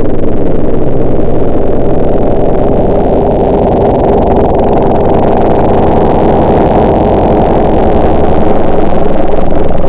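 An engine running steadily and loudly, muffled, with its energy held low. It eases off slightly in the middle and comes back up near the end.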